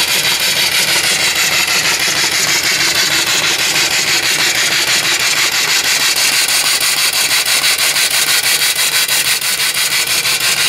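Single-cylinder steam engine with a 3-inch bore and 4-inch stroke running under steam, its exhaust chuffing in a rapid, even beat over a steady hiss.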